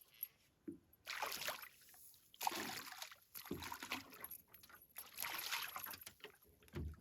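Water splashing and sloshing around a small fishing boat in irregular bursts a second or so long.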